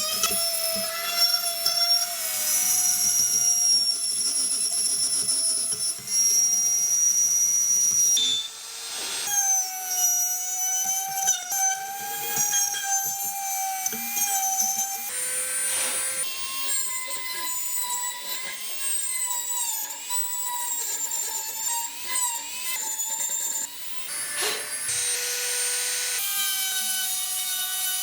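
Handheld electric power tool running continuously, its motor whine stepping up and down in pitch several times as it is pressed into the work, with a gritty rubbing noise over it.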